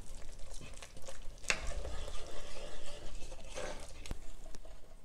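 Wooden spatula stirring thick tomato purée and spices in a granite-coated nonstick pot, scraping the pot with a soft sizzle from the cooking sauce; a couple of louder scrapes stand out about a second and a half and three and a half seconds in.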